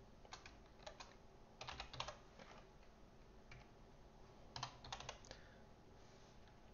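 Quiet typing on a computer keyboard, four short bursts of keystrokes with pauses between them.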